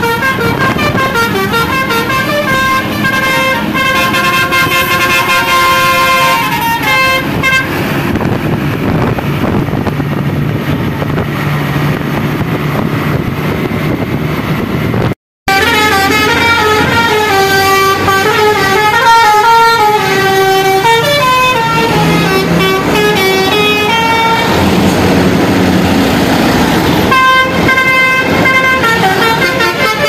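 A bus's multi-tone "basuri" telolet air horn playing a tune of stepping notes, often several tones sounding together, over engine and traffic noise. The sound drops out for a moment about halfway through, then the horn tune starts again.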